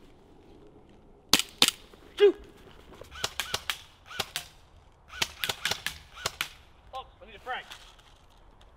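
Airsoft rifle firing: two sharp shots about a second in, then several quick runs of shots over the next few seconds.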